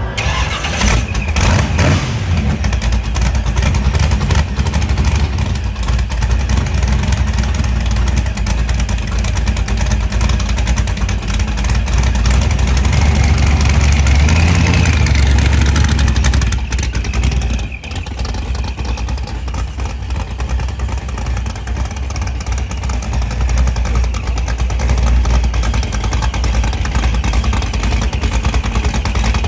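ProCharger-supercharged V8 engine of a Boss Hoss motorcycle running, revved up louder with a rising whine for a few seconds around the middle, then carrying the bike away.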